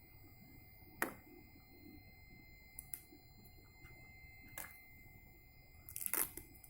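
Quiet room with a faint steady high whine, a few soft clicks, and a short rustle near the end.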